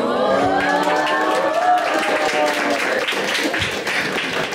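Small audience cheering and clapping, many voices calling out together over steady applause.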